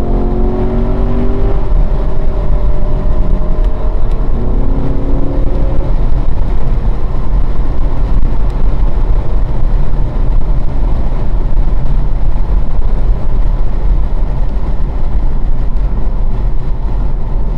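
Car engine at full throttle heard from inside the car. The revs climb, break at a shift from third to fourth a couple of seconds in, and climb again. They then give way to a steady loud rush of wind and road noise as the car lifts off and slows.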